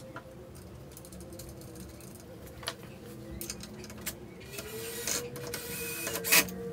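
Hex key working the mounting bolts of a NEMA 23 stepper motor, which are being snugged up but not fully tightened: scattered small metal clicks and scrapes, getting busier near the end with one sharp click. A faint steady hum runs underneath.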